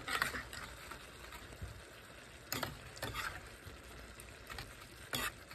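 Metal ladle stirring and scooping a wet, saucy food mixture in a large bowl, with a few sharp clinks of the ladle against the bowl.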